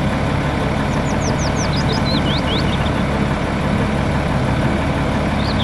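Volvo FMX five-axle tipper truck's diesel engine running steadily at idle while its hydraulic ram raises the dump body.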